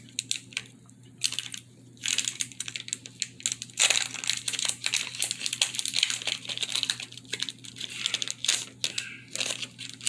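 Foil wrapper of a Pokémon trading card booster pack being torn open and crinkled by hand: a run of crackles, sparse at first and dense and louder from about two seconds in.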